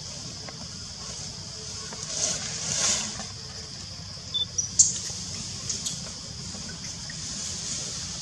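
Outdoor ambience: a steady high hiss over a low rumble, with a brief swell of rushing noise about two to three seconds in and a few short high tones and clicks around the middle.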